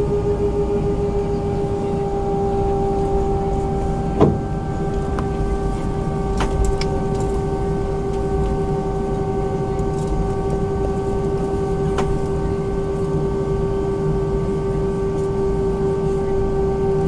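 Cabin noise inside a taxiing Airbus A320-232: a steady engine hum with one held tone, over a low rumble. A single sharp knock about four seconds in, and a few faint clicks later.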